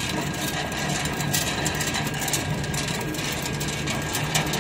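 Chain link fence weaving machine running in jog (inching) mode to feed out wire. It makes a steady low motor hum with a thin steady high whine, and scattered clicks come from the mechanism.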